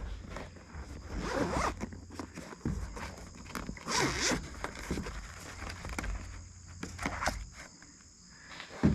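A zipper pulled in two long strokes, about a second and a half in and again about four seconds in, amid rustling and handling clicks.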